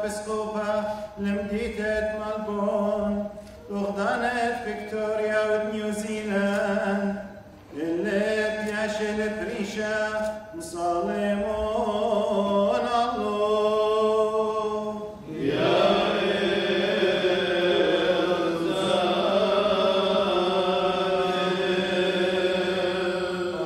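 Male clergy chanting a Syriac liturgical prayer, the melody moving in phrases over a steady low held note. About fifteen seconds in the chant becomes fuller and unbroken.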